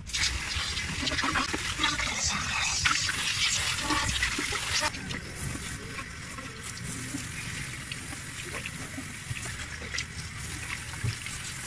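Water sloshing and splashing as a rubber turbo intercooler hose is scrubbed inside with a brush in a basin of soapy water, busier for the first five seconds or so, then softer.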